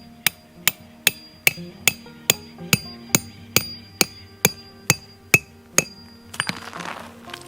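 Hammer striking in a steady, even rhythm, about two and a half blows a second with a short ring after each, over background music. A brief rustling scrape near the end.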